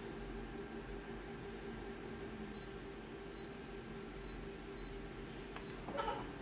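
Office multifunction copier: about five short high key beeps from its touchscreen as copy settings are pressed, over the machine's steady hum. Near the end a click and a burst of mechanical noise as the copier starts scanning the original.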